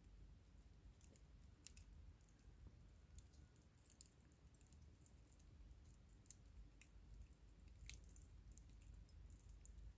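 Wood campfire burning low with faint, scattered crackles and pops, a sharp snap every second or so over a quiet low rumble.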